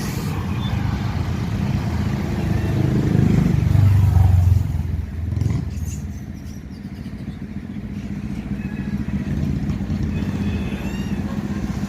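Motor traffic on a road, one vehicle engine swelling to its loudest about four seconds in and then fading into a steady low rumble.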